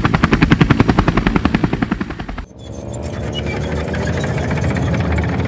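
Helicopter rotor sound effect, a fast even chopping, which cuts off about two and a half seconds in. A tracked armoured vehicle's engine sound effect then starts, rising in pitch as it revs up over a low rumble.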